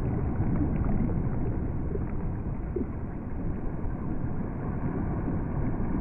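Underwater ambience: a low, steady wash of water noise with a few faint scattered clicks.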